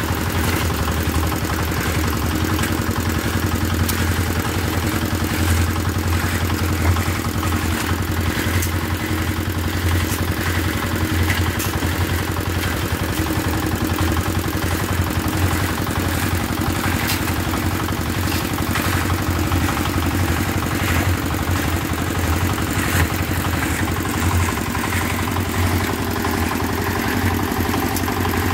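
A small engine running steadily at idle, with scattered light knocks and clatter over it.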